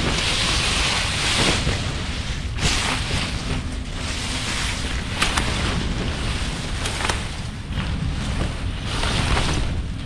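Wind buffeting the microphone: a steady low rumble with swelling gusts of hiss and a few sharp clicks.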